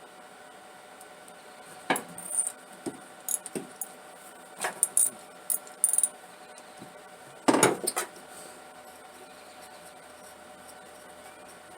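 Irregular metallic clinks and knocks of a socket wrench and spark plug being handled as a stubborn spark plug is worked out of the engine, with the loudest cluster about seven and a half seconds in.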